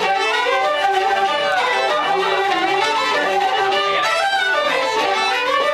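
Traditional Irish session music: fiddles, wooden flutes and a tin whistle playing a tune together.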